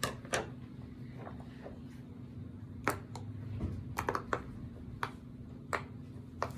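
Bubbles of a giant silicone pop-it fidget toy being pushed through one at a time, giving about nine short, sharp pops at irregular intervals, over a steady low hum.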